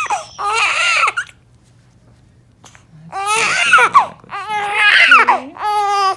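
A newborn baby crying: a wail near the start, a pause of about a second and a half, then three more wails in quick succession.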